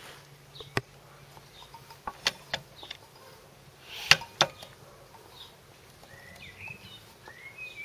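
A handful of sharp clicks and knocks at irregular intervals, the loudest about four seconds in, with a few short bird chirps near the end.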